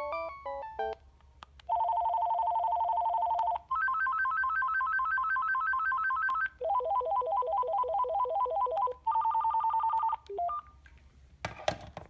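Vtech CS6719-16 DECT 6.0 cordless handset previewing its ringtones. The last notes of a melodic tone give way to a series of rapid electronic trilling rings, each at a different pitch and each cut short after one to three seconds as the next tone is selected, with small key clicks between them. A short beep comes about ten seconds in, then a brief rustle as the handset is handled.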